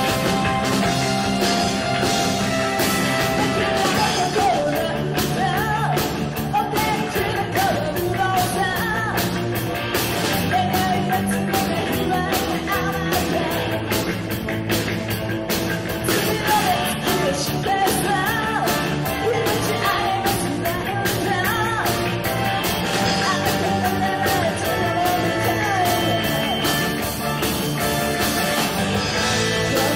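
Live rock band playing a song with electric guitar, bass and drums. A lead vocalist comes in singing about five seconds in.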